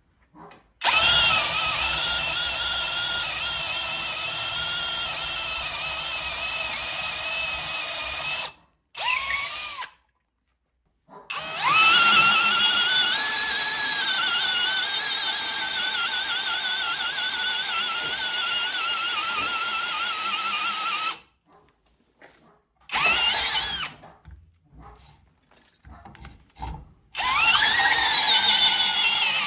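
Parkside Performance PBSPA 12 E4 12 V cordless drill driver running: a high motor-and-gearbox whine in two long runs of about eight to ten seconds each, then a shorter run, several quick trigger blips, and a final run whose pitch climbs as it spins up. The pitch wavers slightly during the long runs.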